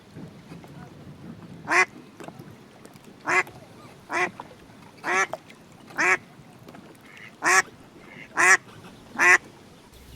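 Female duck quacking: eight single loud quacks about a second apart, some closer together.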